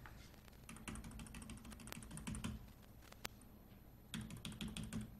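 Faint tapping on a laptop keyboard, in short runs of clicks about a second in, around two seconds, and again near the end.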